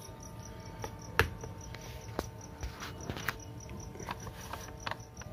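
Steady insect chirping, a high pulse repeating about four times a second, with a few sharp clicks, the loudest about a second in.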